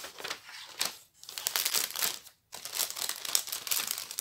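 Plastic packaging crinkling and crackling as it is handled, irregularly, with two short pauses, about one second in and about two and a half seconds in.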